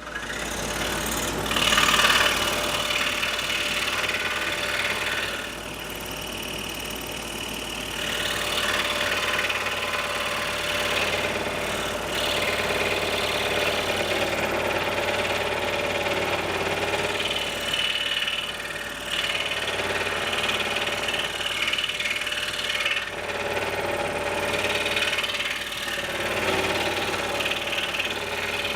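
Scroll saw running steadily, its blade cutting through a thick block of maple in a long compound cut; the cutting noise grows and fades several times as the blade works along the pattern.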